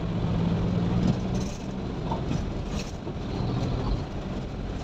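Engine of a delivery vehicle running steadily, with road noise, heard from inside the cab while driving in slow city traffic.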